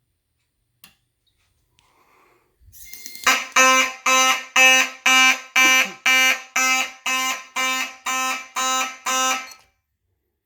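Simplex 9838 fire alarm horn on a 4903-9101 strobe plate sounding in march time, about two blasts a second, for about six seconds before it cuts off. The fire alarm panel is in alarm, tripped by a Simplex 2098-9636 smoke detector on test.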